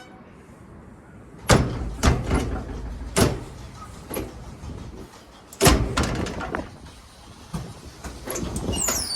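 A heavy iron door banging and clanking: four loud metal knocks with a ringing tail and lighter rattles between them. A creak that glides in pitch starts near the end.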